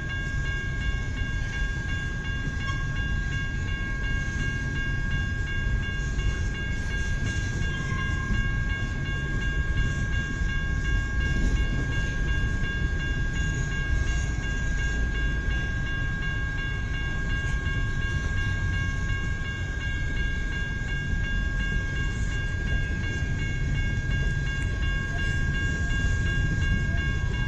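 Freight train cars rolling past: a steady low rumble of wheels on rail, with a thin high-pitched whine held over it.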